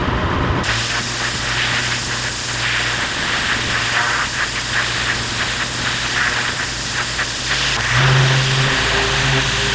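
Pressure-washer lance jet blasting concrete patio slabs, a steady spray over the steady hum of the machine's engine; the hum grows louder about eight seconds in.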